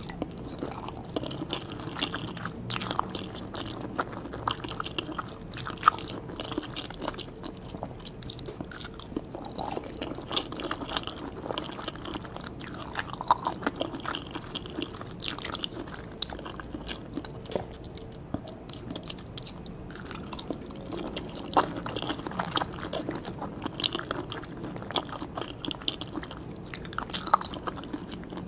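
A person chewing and biting food close to the microphone, with many irregular short clicks and smacks from the mouth.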